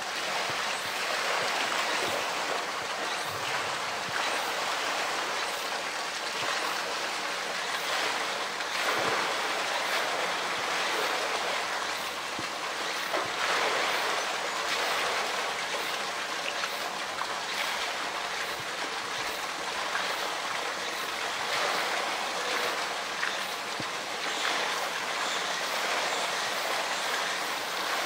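Steady rush and sloshing of pool water, with splashes now and then as a polar bear pushes and wrestles a floating blue plastic drum in the water.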